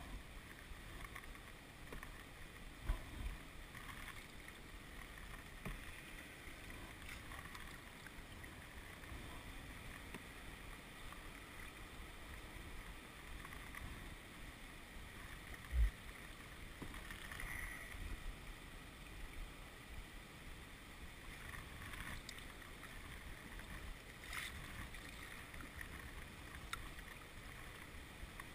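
Faint, steady river-water noise around an open canoe drifting on flat water, with a couple of short low knocks, one about three seconds in and a sharper one about sixteen seconds in.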